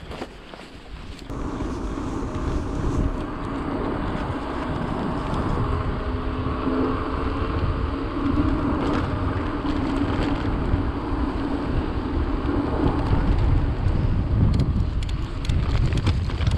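Mountain bike tyres humming steadily on asphalt, with wind buffeting the camera microphone; near the end, short knocks and rattles as the bike rolls onto a rough dirt trail.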